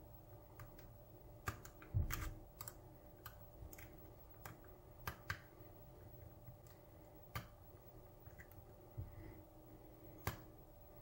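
Faint, irregular clicks and ticks of a hook pick and tension tool working the pins inside a brass challenge lock cylinder during single-pin picking, with the loudest knock about two seconds in.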